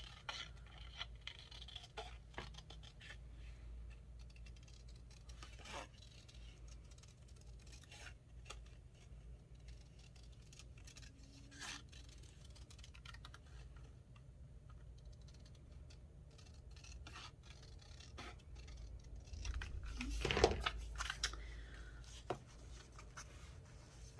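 Scissors snipping paper: a long run of small, irregular snips, with a louder rustle of the paper being handled about twenty seconds in.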